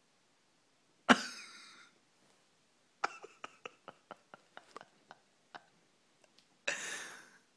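Stifled laughter from the people holding it in: a sudden breathy burst about a second in, a run of short suppressed giggles and mouth clicks, then another breathy burst near the end.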